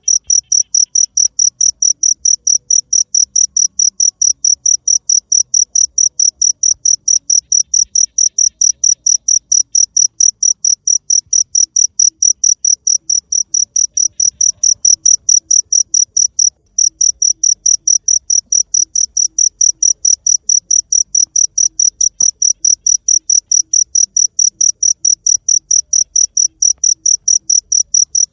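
Cricket chirping in a fast, even rhythm of high-pitched pulses, broken once for a moment about 17 seconds in.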